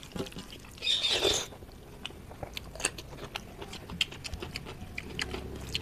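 Close-up eating sounds of a person eating rice and dal by hand: chewing with many small wet clicks and smacks, and a brief louder squelching rustle about a second in.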